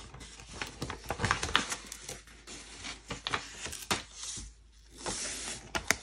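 Paper sticker sheet rustling and crinkling with irregular light clicks and taps as a large planner sticker is peeled from its backing and handled. There is a brief lull a little past halfway.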